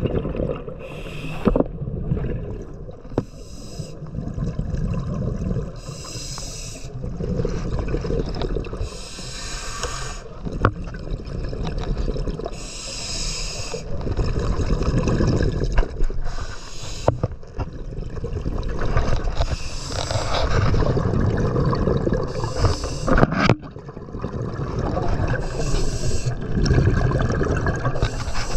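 A scuba diver breathing underwater through a regulator: a hiss about a second long every three seconds or so, with bubbling and rumbling water noise between. There is one sharp click about three quarters of the way through.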